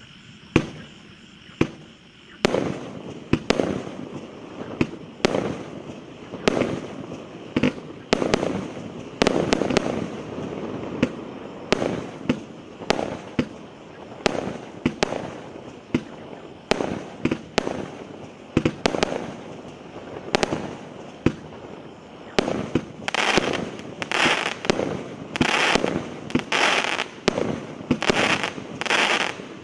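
A 100-shot, 1.25-inch firework cake (SLK C205 'Фейерверк-100') firing shot after shot: a sharp bang about every half second to a second, each followed by the crackle of its burst. Near the end the shots come closer together and the crackle grows hissier and brighter.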